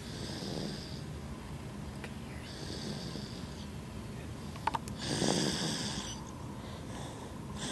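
A sleeping baby girl snoring loudly, three rasping breaths about two and a half seconds apart, the third the loudest. A short sharp click comes just before it.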